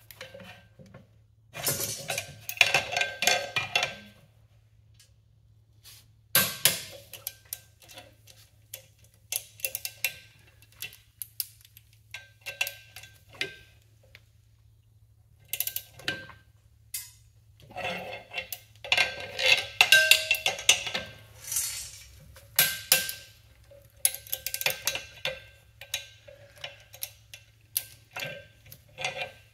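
Ratcheting torque wrench clicking in repeated short bursts, with metal clinks of socket and tools, as wheel studs are tightened into a full-floating axle hub.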